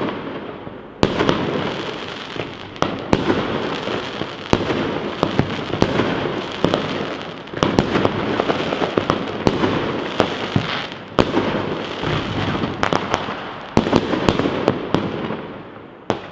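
Fireworks display: aerial shells bursting in rapid succession, a near-continuous run of bangs and crackling with fresh volleys every few seconds, dying away near the end.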